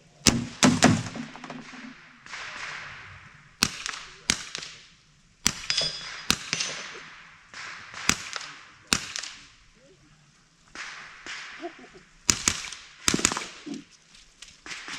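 Series of .22 rimfire mini-rifle shots, about a dozen sharp cracks mostly fired in quick pairs with pauses between the pairs, each with a short echo.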